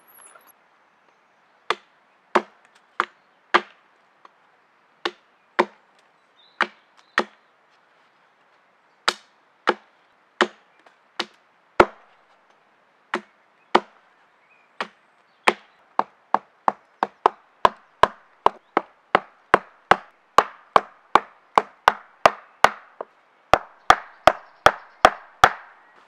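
Chopping blows of a hatchet into a wooden log, a series of sharp knocks: spaced out in the first half, then faster and steadier, about two or three a second, from about halfway.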